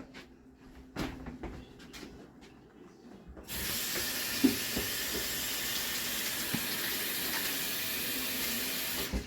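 A few faint clicks and knocks, then a sink tap turned on about three and a half seconds in: water running steadily into the sink for hand washing, shut off abruptly near the end.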